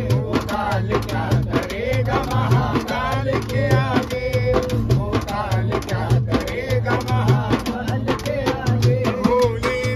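A hand drum beaten with the hands in a fast, steady rhythm while a man sings, with other voices singing along.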